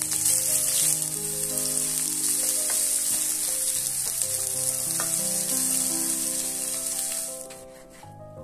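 Sliced onions sizzling in hot oil in a frying pan as a wooden spatula stirs them, with a few light taps of the spatula; the sizzle cuts off suddenly about seven and a half seconds in. Soft background music with held notes underneath.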